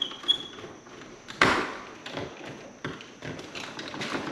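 Clicks and knocks of a hand tool and wires being worked at an electrical breaker panel, with one sharper knock about a second and a half in.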